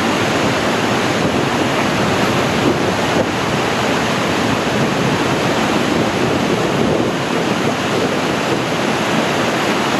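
A river in heavy flood rushing through big whitewater rapids, a loud, steady, unbroken wash of water noise.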